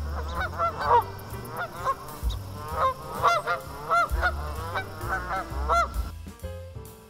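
A rapid run of short, pitched animal calls, about two or three a second, that stops shortly before the end.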